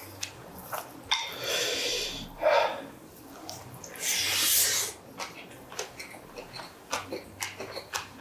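Close-miked eating sounds: a man chewing with wet mouth smacks and clicks. About four seconds in there is a longer sucking slurp as he takes food from chopsticks, followed by quick smacking chews.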